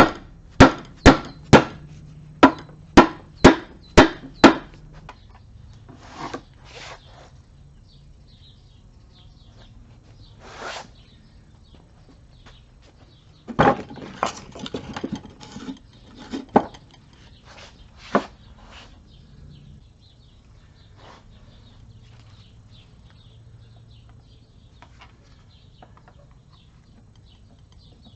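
A run of about nine sharp blows, roughly two a second, struck on or around an NP229 transfer case during disassembly. After them come scattered knocks and clinks of tools and metal parts.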